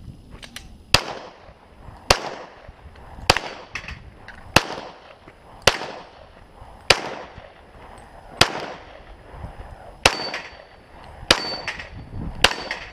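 Semi-automatic pistol shots fired one at a time, about ten in all, roughly a second to a second and a half apart, each trailing off in an echo.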